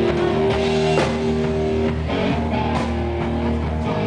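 Live rock band playing: an amplified electric guitar holding chords over a drum kit.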